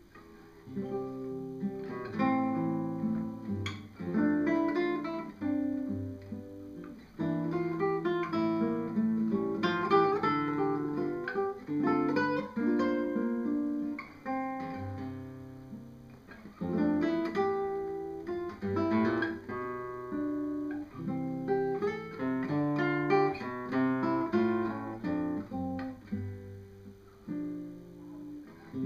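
Solo classical guitar played fingerstyle: a run of plucked notes with a melody over lower bass notes.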